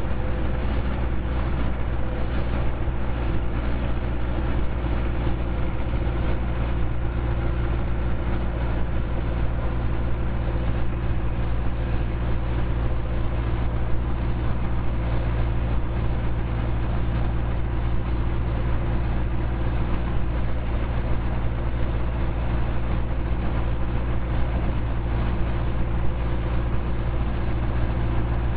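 Model T Ford four-cylinder engine running steadily under load as the car pulls up a hill in high gear rather than low pedal, heard from inside the car.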